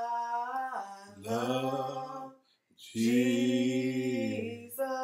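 A man singing a slow gospel praise chorus unaccompanied, holding long notes, with a brief pause about two and a half seconds in.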